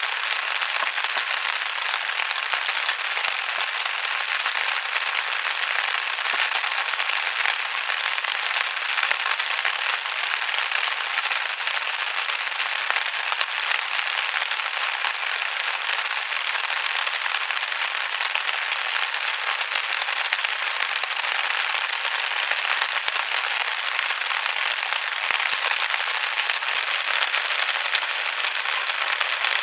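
Heavy rain falling steadily, a dense, even patter of countless drops.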